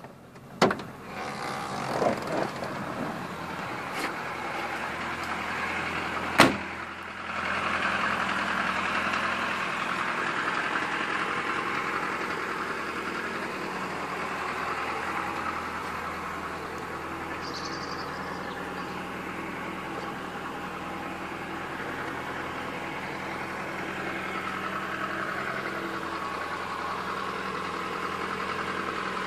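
FSO Polonez Caro 1.6 GLI's four-cylinder OHV engine idling steadily. In the first seven seconds come a few knocks and clicks, the loudest a single car door thud about six seconds in.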